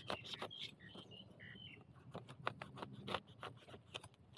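Irregular crackles and snaps of dry leaves and twigs being trodden or handled, with a few faint high chirps in the first couple of seconds.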